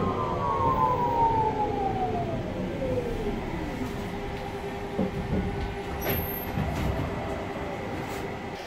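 Škoda 14T tram's electric traction drive whining in a falling pitch as the tram slows, the whine dying away about four seconds in over the rumble of the car. A steady hum and a few clicks follow.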